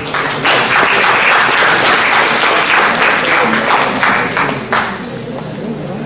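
Audience applauding, starting about half a second in and dying away about five seconds in.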